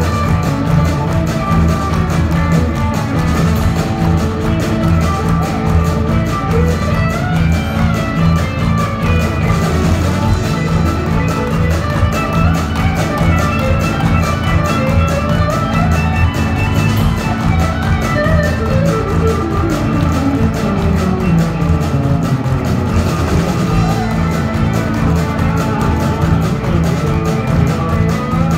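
Live country-rock band playing an instrumental passage: electric and acoustic guitars, accordion, bass and drums, with a lead line that slides up and down in pitch. Heavy, boomy low end as picked up from the audience.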